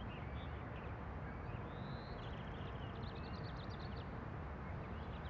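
Quiet ambience of birds chirping outside: many short high chirps, with one longer whistled note about two seconds in, over a low steady rumble.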